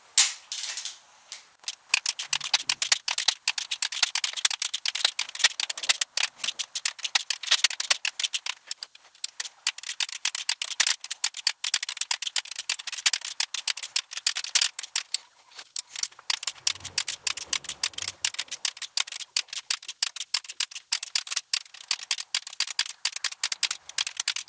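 Torque wrench ratchet clicking rapidly and repeatedly as the nuts on the aluminum cylinder-head studs are drawn down on a first pass to 40 ft-lb, with a brief pause about fifteen seconds in.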